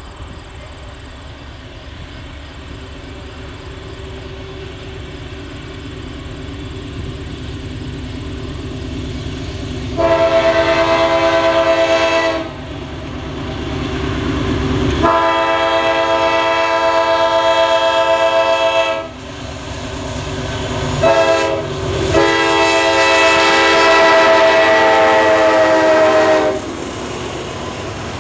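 CSX freight locomotive approaching and sounding its air horn in the grade-crossing pattern: long, long, short, long, the last blast sagging slightly in pitch as it goes by. A diesel rumble builds underneath, and the freight cars are heard rolling past near the end.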